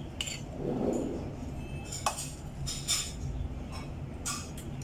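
Metal spoon and fork clinking against a ceramic bowl about four times while eating, over a steady low hum.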